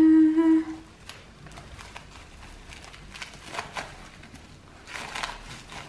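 A voice holds a sung 'dun' for about the first second. Then a cling-film-wrapped bamboo sushi mat rustles and clicks softly as it is rolled over and pressed around a roll. A louder crinkly rustle comes about five seconds in.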